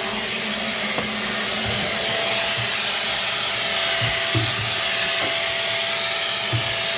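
Shark Rocket stick vacuum running steadily through its bare wand, with the power head detached, as a continuous rushing suction with a steady high whine. A few short low bumps come through during the run.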